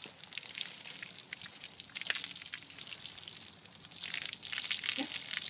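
Garden hose spray spattering on a horse's wet coat: a steady hiss of water with many fine splats, louder about two seconds in and again over the last second and a half.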